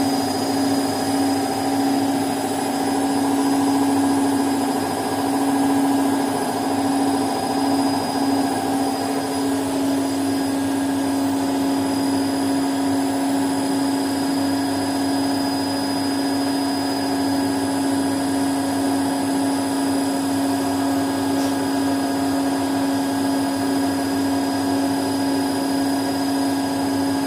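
Washing machine running with a steady motor hum, its higher tones shifting slightly about nine seconds in.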